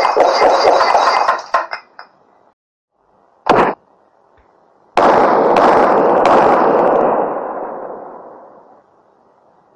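Stock sound effects for an animated end card: a bright ringing burst that stops about two seconds in, a short pop a little later, then a sudden clash that rings on and slowly dies away over about four seconds.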